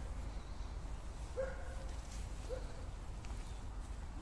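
A dog giving two short yelps, about a second and a half in and again a second later, over a steady low rumble.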